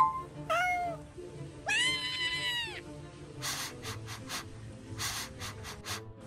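An animal crying out twice over background music: a short call falling in pitch, then a longer held call lasting about a second. Several short scraping noises follow after the middle.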